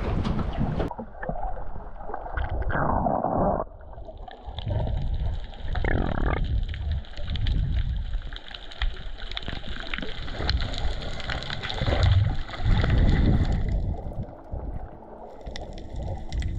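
Muffled water sloshing and gurgling heard through an underwater camera housing as a freediver swims just below the surface, in uneven low surges.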